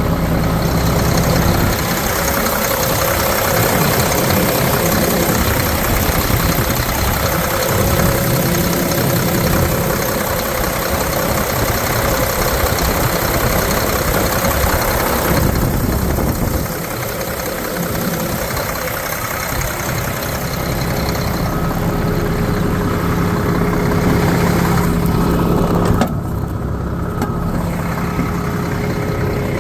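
Mack 11.9-litre inline-six diesel in a concrete truck idling steadily, with small shifts in its sound partway through and near the end.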